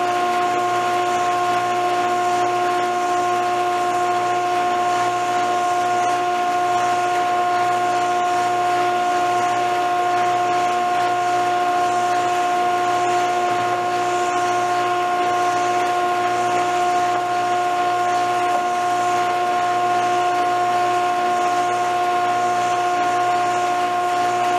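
Single-stage bag dust collector running steadily: an even blower rush with a constant whine from the motor and impeller.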